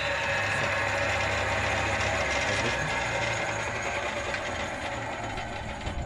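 Belt-driven electric circular saw running freely with no wood in the blade: a steady motor and blade hum, with a single knock near the end.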